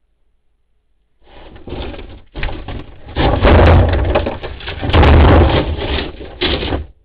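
A black bear knocking over and handling a trash can close to the microphone: loud, uneven clattering and banging that starts about a second in, peaks twice and stops suddenly just before the end.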